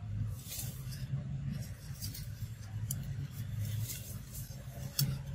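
Dry leaf litter crackling in short, sharp rustles every second or so as a macaque moves its hands through it, over a low steady rumble.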